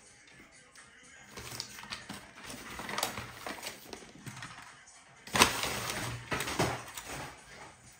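Crumpled paper packaging rustling and crinkling as it is handled and pulled away, with the loudest crackle starting suddenly about five and a half seconds in.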